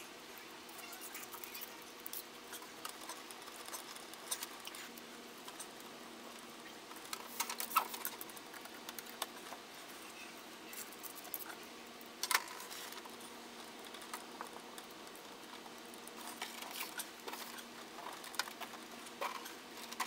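Cables being handled and bundled with hook-and-loop cable ties: light rustling and scattered small clicks of plugs and cords, with a couple of sharper handling noises about 8 and 12 seconds in, over a faint steady hum.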